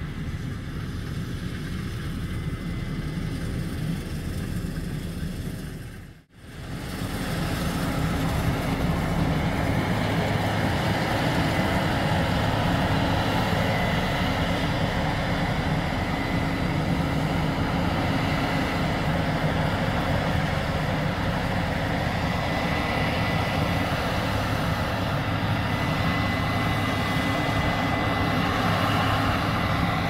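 Steady mechanical hum with a few held tones, like heavy machinery or an engine running. It cuts out for a moment about six seconds in, then comes back slightly louder and steady.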